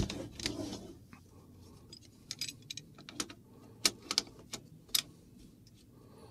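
Detachable AR-15 carry handle being seated on the upper receiver's rail and its clamp knobs turned: a string of light, irregular metal clicks and ticks, a louder one at the start and most of them bunched around the middle.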